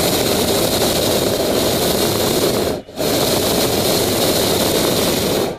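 Hot air balloon's propane burner firing with a steady loud roar, cut for a moment just under three seconds in, then shut off near the end.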